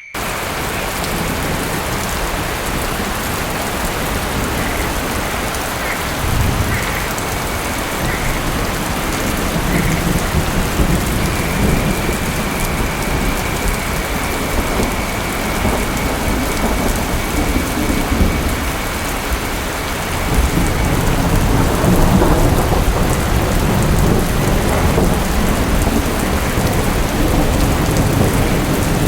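Steady heavy rain with thunder rumbling low underneath in slow swells, the rumble and rain growing louder about twenty seconds in.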